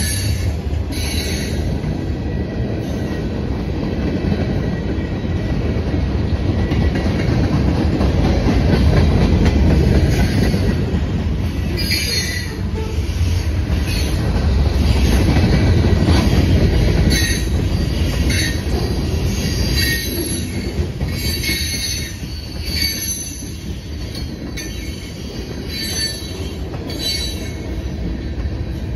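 Freight cars of a long Norfolk Southern manifest train rolling past with a steady low rumble. Short high-pitched squeals from the steel wheels on the rail keep coming through, about once a second.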